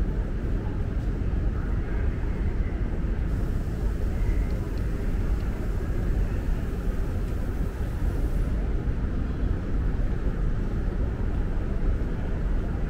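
Steady low rumble of the ambient noise in a large, hard-surfaced station concourse, with no distinct events standing out.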